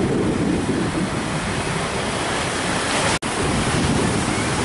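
Rough sea surf breaking and washing on a shore, with wind buffeting the microphone. The sound cuts out for an instant about three seconds in, then the same rushing noise carries on.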